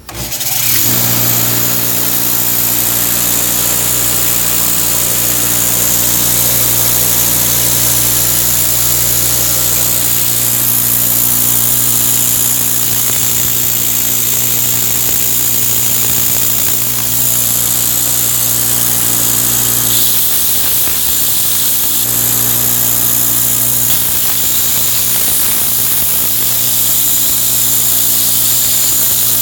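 Homemade 2x72 belt grinder switched on, coming up to speed within about a second, then running steadily with a constant motor hum and the hiss of the abrasive belt.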